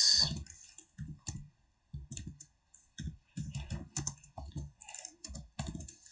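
Typing on a computer keyboard: irregular, uneven keystrokes as a few words are typed.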